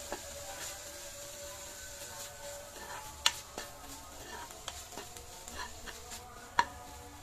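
Spatula stirring and scraping flaked fish around a nonstick frying pan, with a faint sizzle underneath and sharp clicks where the spatula knocks the pan, loudest about three seconds in and again about three seconds later.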